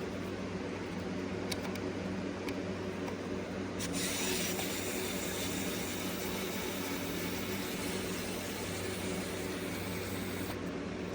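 Small cordless electric screwdriver motor running for about six or seven seconds, starting about four seconds in as a steady whir over a constant low hum, with a couple of light clicks before it.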